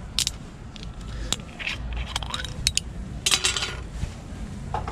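A string of sharp clicks and clinks of glass and metal tableware being handled, the busiest cluster about three and a half seconds in, over a low steady background rumble.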